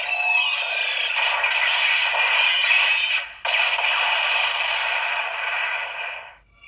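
Electronic sound effects and music played through the small built-in speaker of a Kamen Rider Zero-One DX transformation toy, thin with no bass, stopping briefly about halfway through and cutting off near the end.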